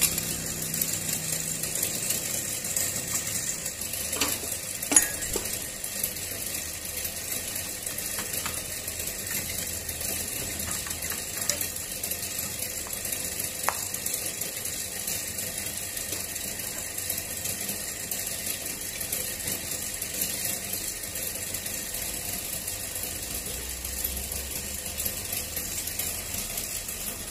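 Steel formwork for precast concrete U-ditch moulds being worked by hand: a few sharp metal knocks about five seconds in, over a steady mechanical rattle and hum.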